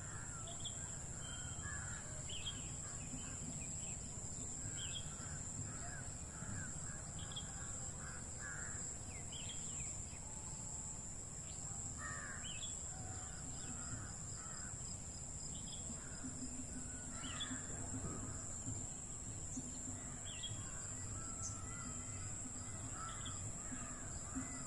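Several birds calling, with many short calls and high chirps scattered throughout over a steady high whine.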